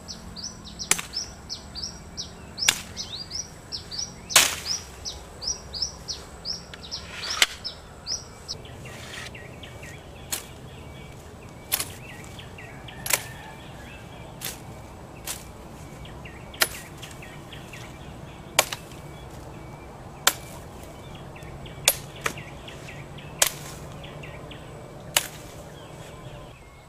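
Bolo machete chopping vegetation: a string of sharp single blows, roughly one every one and a half seconds, the loudest about four seconds in. A bird gives a quick run of short falling chirps during the first few seconds.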